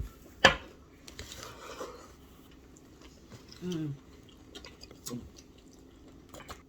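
Close-up chewing and mouth sounds of someone eating, with a sharp click about half a second in, the loudest sound, and a short voiced 'mm' falling in pitch a little past the middle.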